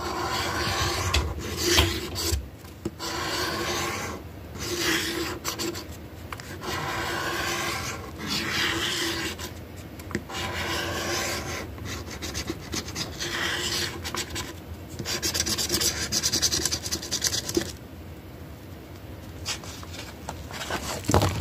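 Scratch-off lottery ticket coating being scraped off in a series of rasping strokes, each about a second or two long with short pauses between, going quieter near the end.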